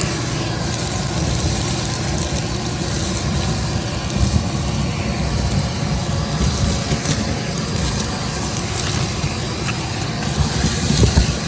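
Vacuum cleaner running steadily, with some uneven low rumbling and a few louder thumps near the end.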